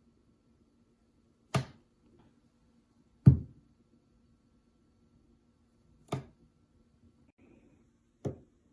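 Four sharp taps or knocks at uneven intervals, the second the loudest, over a faint steady hum.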